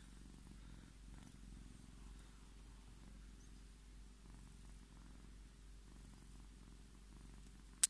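Scottish Fold cat purring steadily and faintly as its head is stroked. A single sharp click comes at the very end.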